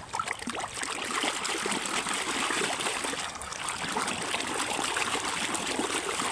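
Steady running water splashing onto a muddy toy truck as it is rinsed clean.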